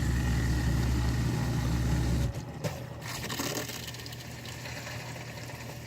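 Miele dishwasher's drain pump running with a steady low hum, cutting off abruptly a little over two seconds in; a click follows and the machine goes quieter as it switches over to filling with water. These are normal start-up sounds.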